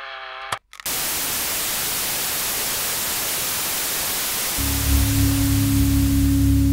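A click and a moment's dropout, then loud, steady television static hiss from a CRT set showing snow. About two-thirds of the way in, a low, sustained droning music tone comes in under the hiss.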